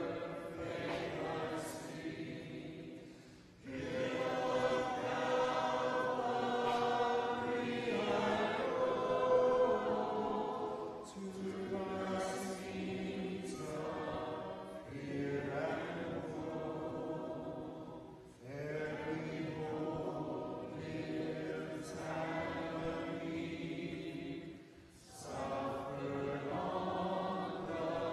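Congregation singing a hymn a cappella, many voices together, in long held phrases with brief pauses between lines.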